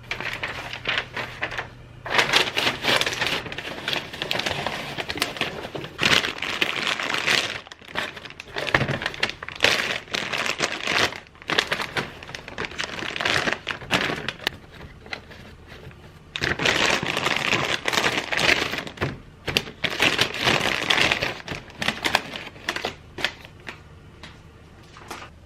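Paper or wrapping crinkling and rustling in uneven bursts, with small knocks of things being handled and packed.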